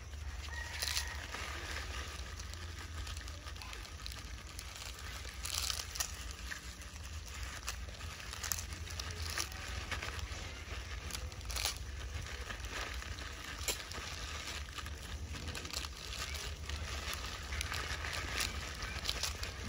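Plastic snack wrapper crinkling in a macaque's hands, in short irregular rustles and crackles, over a steady low rumble.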